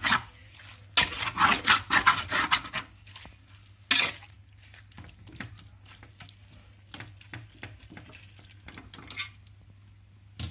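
Marinated chicken pieces being stirred in a metal pot with a spatula, scraping and knocking against the pot in quick strokes for the first few seconds, one more sharp scrape about four seconds in, then only occasional light knocks.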